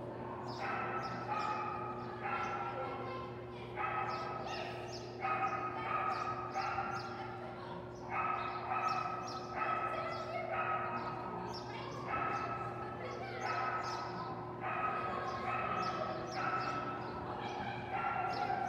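A dog barking over and over in short, high barks, one or two a second, with brief pauses between runs.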